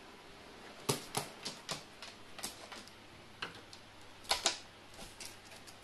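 Carrion crow's claws clicking and tapping on a hard ledge as it shifts about restlessly, a dozen or so irregular sharp taps, the loudest a pair about four seconds in, over a faint steady hiss.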